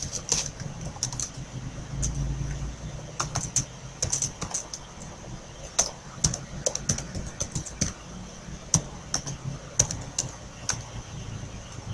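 Keystrokes on a computer keyboard, typed in irregular runs of clicks with short pauses between them, over a faint low hum.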